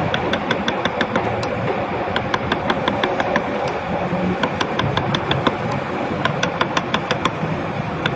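Carving chisel being struck by a mallet as it cuts into a hardwood relief panel: quick, even, sharp taps at about five a second, over a steady background noise.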